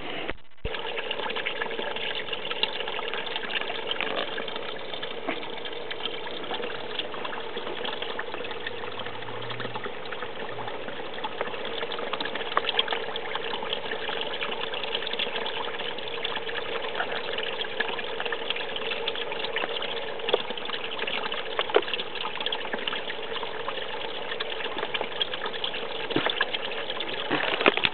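Spring water trickling steadily out of an old well's outlet into a shallow channel, with scattered small splashes.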